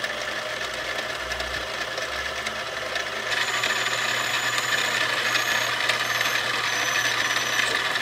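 Small metal lathe running and machining a brass rod: a drill bit fed from the tailstock bores a small hole, then a cutting tool works the spinning brass, over a steady motor hum. About three seconds in the cutting gets a little louder, with faint high whistling tones coming and going.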